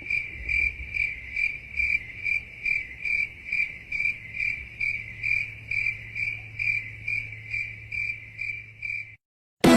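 Crickets chirping, the stock sound effect used as the meme for awkward silence: a steady high trill pulsing about three times a second, cutting off suddenly near the end.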